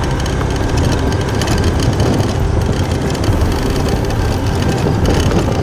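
Motorcycle engine running steadily as the bike rides along, an even rumble with no change in pace.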